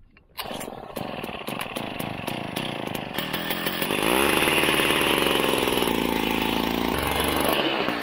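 Small petrol engine of a handheld ice auger running, then revving up hard about four seconds in as the auger bores through the lake ice.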